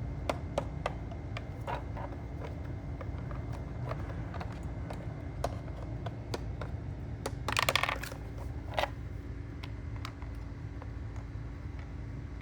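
Small plastic toys being handled: scattered light clicks and taps, with one longer scrape or rustle a little past halfway, over a steady low hum.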